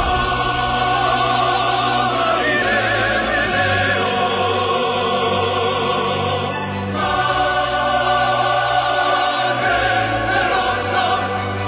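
Background classical music: choir and operatic voices singing held notes with vibrato over a sustained low bass note, dipping briefly about seven seconds in before swelling again.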